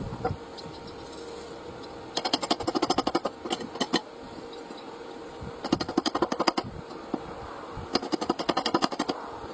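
Welding arc crackling in four short bursts, each about a second long, separated by pauses, over a steady hum.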